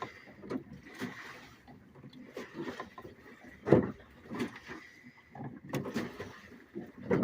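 Hand-operated off-grid washing machine drum being turned back and forth, with jeans, a hoodie and water sloshing and thudding inside against its two agitator fins. Irregular knocks and splashes come about every half second to a second, the loudest near the middle.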